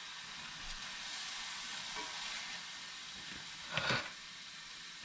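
Steady sizzling hiss of food frying, with one short clatter just before four seconds in.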